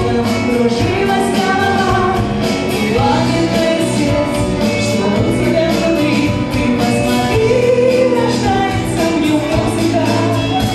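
Live pop song: a woman sings lead over electronic keyboard and band accompaniment with a steady beat.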